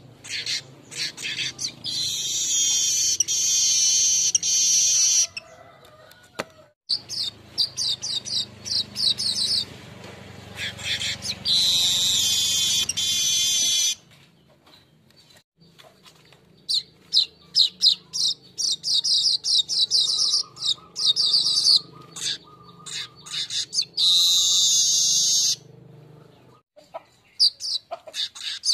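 Weaver birds (manyar) singing: runs of quick dry ticking notes that lead into long buzzy phrases, repeated three times with short pauses, over a faint low hum.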